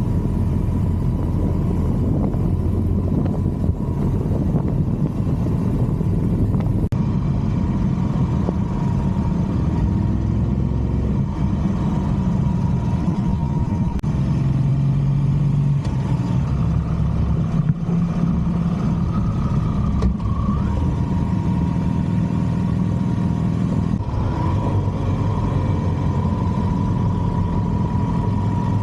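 Harley-Davidson Street Glide V-twin engine running steadily on the road, its low note shifting a few times as the ride goes on.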